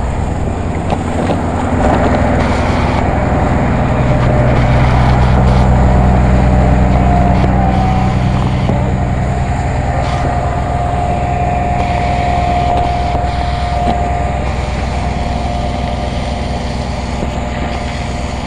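Fire engine's motor running steadily on the move, building up over the first few seconds and easing off in the second half. A faint steady whine sits on top for a few seconds in the middle.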